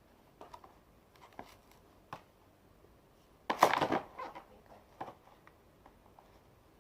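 Ring light packaging being handled and opened: scattered light clicks and taps, then about halfway through a short loud rustling scrape lasting about half a second, followed by a few more soft taps.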